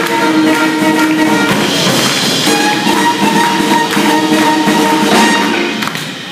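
Live swing band with guitar and drum kit playing an up-tempo swing tune for lindy hop dancing; the tune ends near the end.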